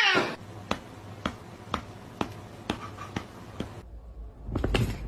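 A regular series of sharp clicks or taps, about two a second, with a low rumble and a few knocks near the end.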